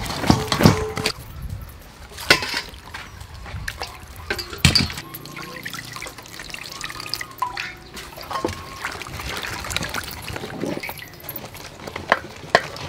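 Water poured from a jug into an aluminium mixing bowl of mashed fruit, trickling and splashing, with a wooden spoon knocking and scraping against the bowl now and then.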